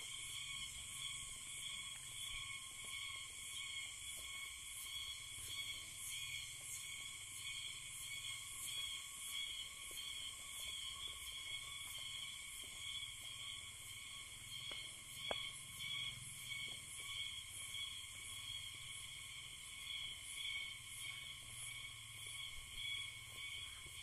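Faint, steady chorus of forest insects: several high-pitched trills layered together and pulsing regularly, with a single faint click partway through.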